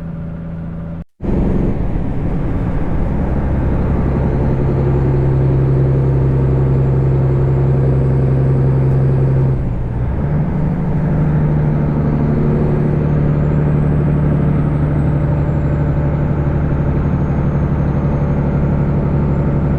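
Semi truck's diesel engine running steadily on the road, a loud low drone. It cuts out briefly about a second in, and around halfway it dips for a moment and comes back at a slightly higher pitch.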